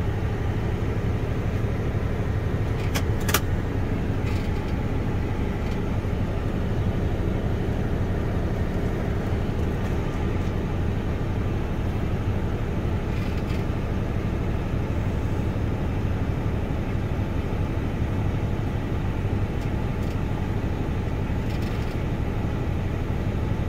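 Steady drone of a John Deere 9620R tractor engine under load, driving the grain cart's unload auger at half speed to unload barley, heard from inside the cab. Two sharp clicks about three seconds in.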